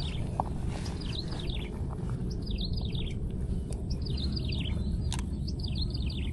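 A songbird singing short phrases of quick falling chirps, repeated about every second and a half, over a steady low wind rumble on the microphone.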